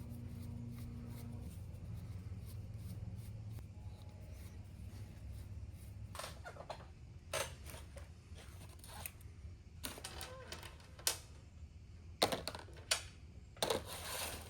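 Scattered sharp clicks and knocks of hand tools and metal parts being handled on a motorcycle engine's oil strainer cover, the loudest coming in a cluster near the end. A low steady hum dies away in the first few seconds.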